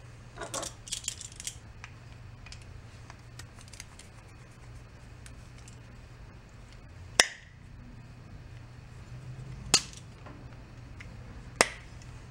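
Small metal carburetor parts being handled and taken apart on a workbench: a quick flurry of clinks and rattles near the start, then three sharp metallic knocks spread over the rest, the first with a brief ring.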